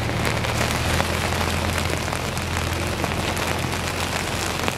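Storm rain and wind: a steady hiss of rain with fine pattering ticks over a low, steady rumble of wind on the microphone.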